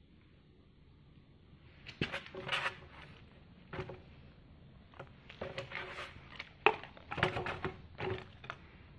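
Plastic Halloween skeleton props being handled and moved about: irregular light clatters and rustles that begin about two seconds in.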